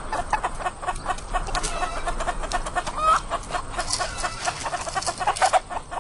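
A flock of hens clucking as they peck at scattered grain, with short calls throughout and one rising call about three seconds in.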